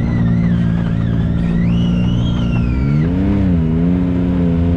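Can-Am Maverick X3 side-by-side's three-cylinder Rotax engine running at low revs, briefly revving up and back down about three seconds in. A high whine wavers over it for the first three seconds, then stops.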